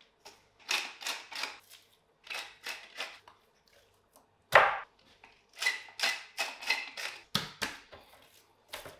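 A wooden salt mill being twisted over a raw whole chicken, giving groups of short grinding strokes. The chicken is handled on a plastic cutting board, with one loud thud about halfway through and a couple of smaller thuds near the end.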